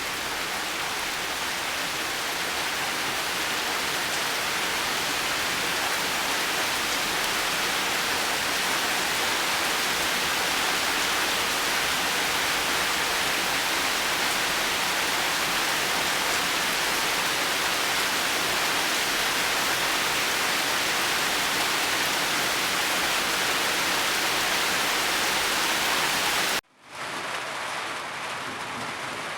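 Heavy rain falling as a steady, even hiss. About 27 seconds in it cuts out abruptly for a split second, then resumes quieter.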